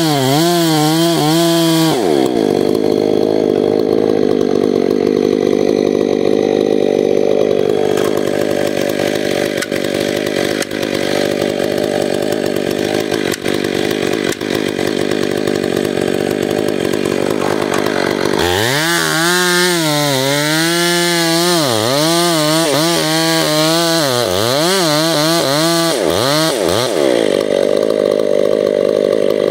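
Stihl MS 500i chainsaw with a 36-inch bar and a hand-filed square chain, running hard as it cuts through a big tree trunk. The engine pitch holds steady for long stretches and wavers up and down for a few seconds at the start and again after about two-thirds of the way through.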